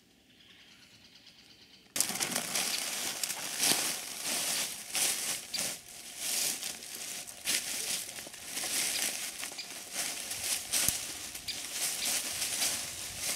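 Dry fallen leaves and twigs crunching and crackling under footsteps as a person clambers through fallen branches. It starts about two seconds in, after a near-quiet moment, and goes on as a dense, irregular crackle with many sharp snaps.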